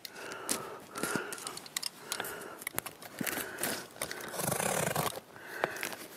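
A small knife scraping and slitting packing tape on a cardboard box, with the crackle of tape and card being peeled and handled. There is a louder scraping stretch about four and a half seconds in.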